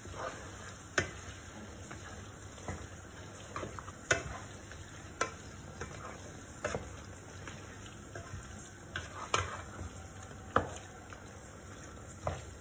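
Wooden spatula stirring chicken and yogurt masala in a nonstick pot. The spatula knocks against the pot at irregular intervals, about once a second, over a steady low sizzle of frying.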